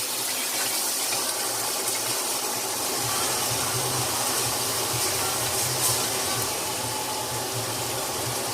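Pre-made tomato stew frying in hot oil in a pot: a steady sizzle, with a low hum underneath.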